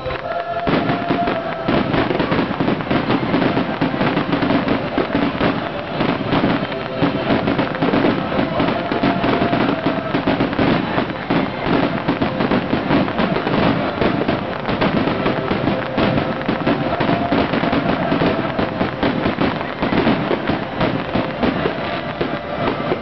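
Aerial fireworks in an intense barrage: a rapid, unbroken run of bursts and crackling shells.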